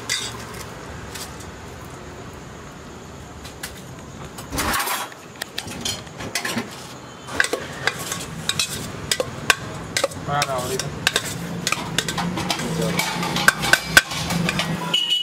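Steel ladle scraping and clanking against a steel pot as rice is stirred and mixed, the knocks coming quickly and irregularly from about five seconds in.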